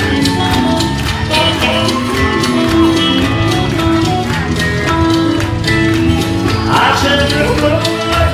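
Loud live rock-and-roll band music from the stage PA, with a steady driving beat and sung vocal lines.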